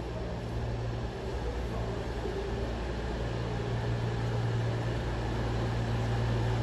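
Class 221 Super Voyager diesel-electric multiple unit drawing into the platform, its underfloor diesel engines giving a steady low drone that grows louder as the train comes closer.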